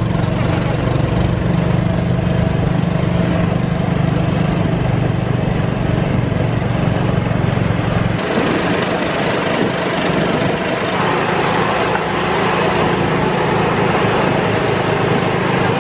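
Golf cart running along a paved street: a steady, loud low engine hum under road and wind noise. The hum weakens for a few seconds about eight seconds in.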